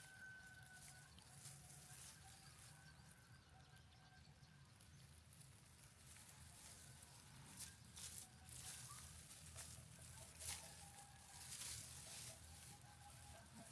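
Near silence: faint rustling and light scratching, several soft scrapes in the second half, over a faint steady hum and thin whine.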